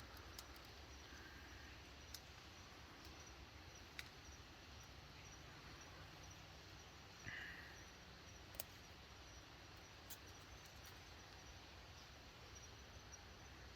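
Near silence: faint outdoor background with a few light ticks and one short faint sound about seven seconds in.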